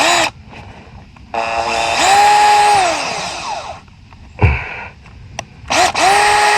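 Power drill boring a starter hole through a brass tapping saddle into PVC water pipe, run in short bursts: a quick blip, then spinning up to a steady whine for about two seconds before winding down, and spinning up again near the end. A dull knock comes between the runs.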